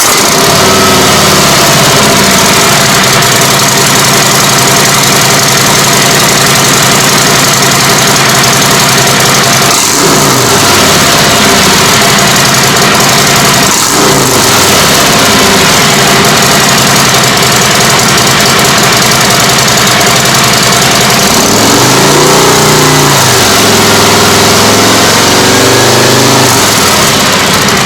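Harley-Davidson Road Glide's Milwaukee-Eight 107 V-twin idling through Vance & Hines Twin Slash Round slip-on mufflers. It is blipped twice, about 10 and 14 seconds in, and given a longer rev later on.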